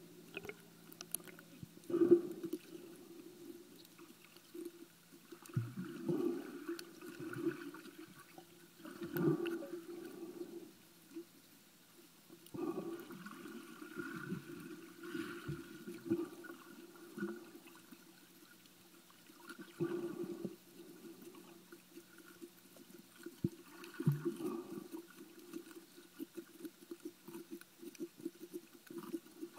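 Underwater recording through a submerged camera: muffled sloshing and gurgling swells of water every few seconds, over a faint steady hum.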